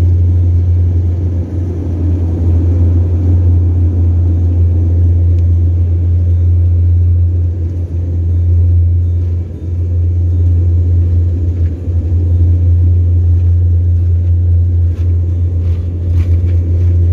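A loud, steady low rumble, with a few brief dips and a few faint clicks near the end.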